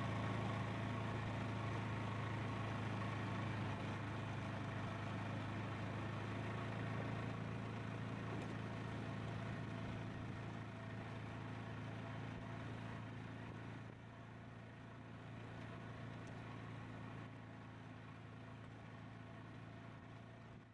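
Engine of a small off-road utility vehicle running steadily as it drives along a grass trail, a low even hum that grows gradually fainter, with a step down about two-thirds of the way through.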